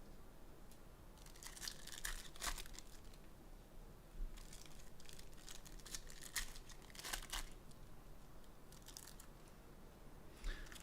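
Faint, intermittent crinkling and tearing of packaging as trading card boxes and packs are opened by hand, in short rustling spells with gaps between.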